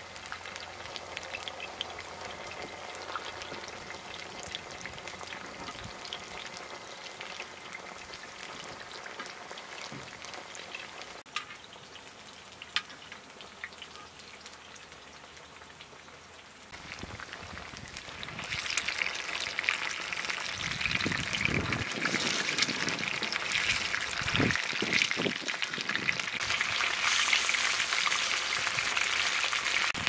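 Rice dumplings frying in shallow oil in a wide black iron pan: a steady sizzle and crackle of hot oil that gets louder about two-thirds of the way in, with a few knocks of the spoon and spatula against the pan.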